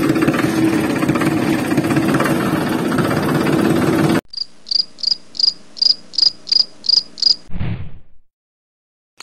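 A miniature motorised toy tractor runs steadily with a low hum while towing its tanker, then cuts off suddenly about four seconds in. A cricket follows with an even series of about ten high chirps, roughly three a second. A brief low falling sound comes near the end, then silence.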